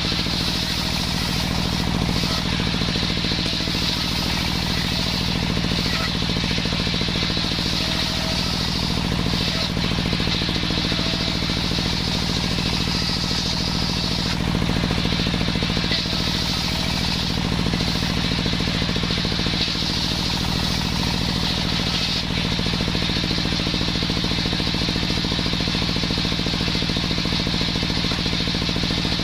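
Homemade circular saw driven by a small engine, running steadily while its blade saws waru wood. Over the engine hum, a high hiss swells and eases a few times.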